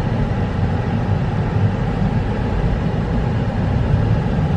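Steady low rumble of a car driving slowly, with engine and road noise.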